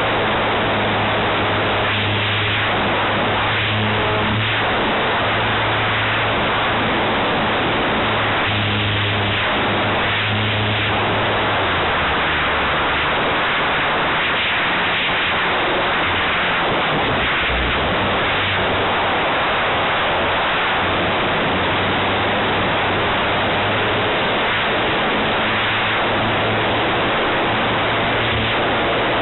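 Radio-controlled aerobatic plane's engine and propeller heard from an onboard camera under heavy air rush. Its note drops and weakens about twelve seconds in and comes back up about six seconds later as the throttle changes through the manoeuvres.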